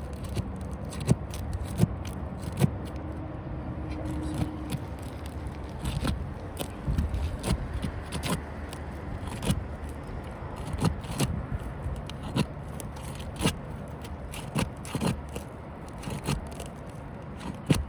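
Sealed-down asphalt roof shingles being pried loose from their sealant strip: scraping with many irregular sharp cracks and pops as the stuck seal breaks and the shingle mat tears.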